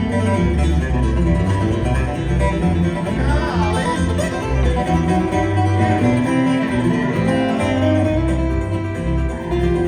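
Live bluegrass instrumental break: flatpicked acoustic guitars over a pulsing upright bass, with no singing.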